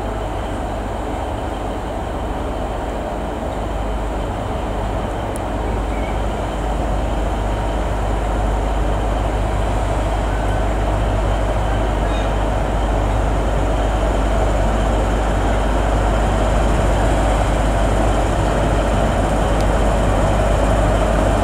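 Class 43 HST power car's diesel engine running, a steady low drone that grows gradually louder.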